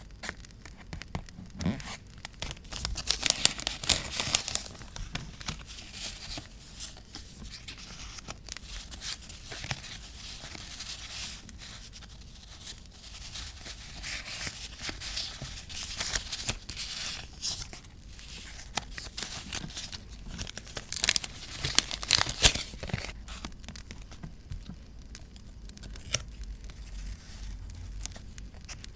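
Paper being torn and crinkled by hand, with two louder stretches of tearing about three seconds in and again around twenty-one seconds in, and scattered light crackles in between.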